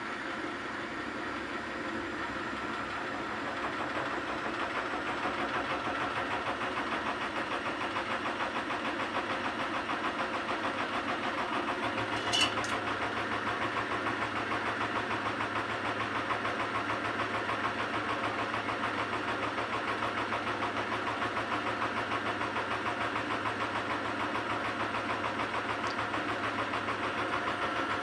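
Samsung washing machine running with a load of wet towels: a steady motor hum with a fast, even pulse. It grows louder about four seconds in, a low hum joins about twelve seconds in, and there is a single sharp click just after.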